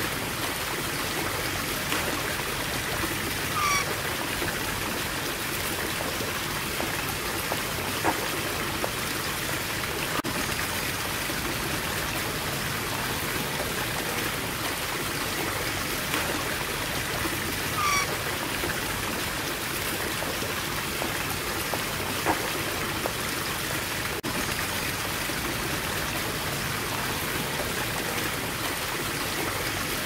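Steady hiss of running water, with a short falling chirp about four seconds in and again about eighteen seconds in.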